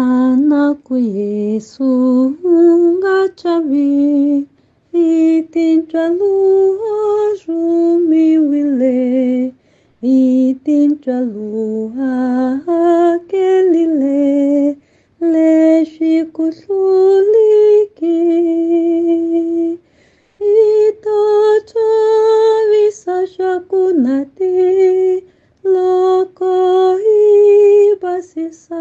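A woman singing a hymn solo and unaccompanied in Tsonga (Changana), a slow melody in phrases with brief breaths between them.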